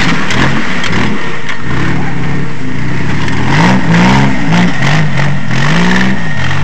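Off-road jeep's engine revving up and down again and again under load as it crawls over rocks.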